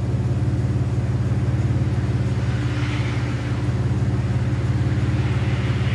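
Steady low machine hum with a fast, even pulse, running unchanged throughout.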